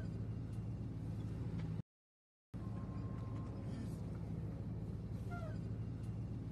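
Steady low drone of a car's engine and road noise heard from inside the cabin while driving, with a brief falling squeak about five seconds in. The sound cuts out completely for about half a second around two seconds in.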